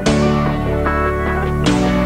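Background music: sustained chords that change about a second and a half in.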